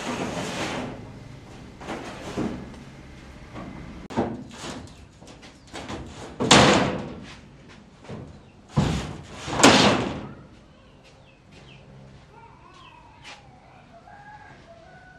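Large metal sheets being handled on a truck's cargo box: a series of loud metallic bangs and scrapes, the loudest two in the middle, then it goes quiet after about ten seconds.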